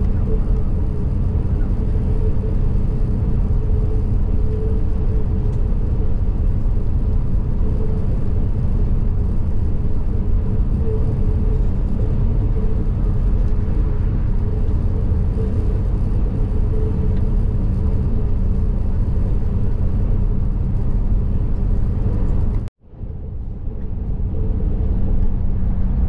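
Steady low rumble of engine and tyre noise inside a vehicle cabin at motorway speed, with a constant hum running through it. Near the end the sound cuts out abruptly for a split second, then comes back quieter and builds up again.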